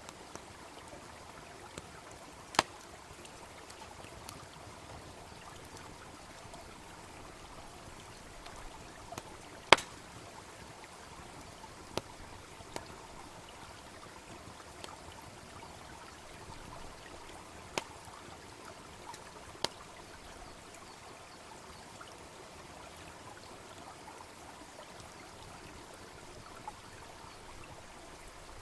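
Steady rush of a babbling brook with a wood fire crackling over it: a handful of sharp, separate pops, the loudest about ten seconds in.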